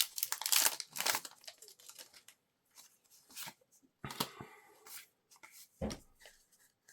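Foil wrapper of a Pokémon TCG booster pack being torn open, crinkling and crackling for about the first second and again about four seconds in, with a single dull thump near the end.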